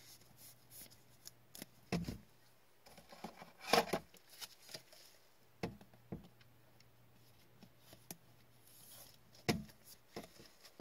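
A trading card being slipped into a hard plastic toploader: scattered light clicks and taps of the rigid plastic, the sharpest a little under four seconds in, with a short soft rub near the end as the card slides into the sleeve.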